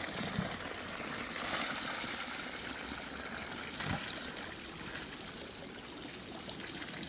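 Running water trickling steadily, with a brief knock or splash near the start and another about halfway through.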